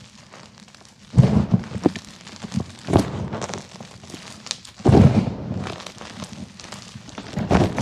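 Hands squeezing and crushing blocks of gym chalk into crumbs and powder: a gritty crunching and crackling that comes in four bursts, about two seconds apart.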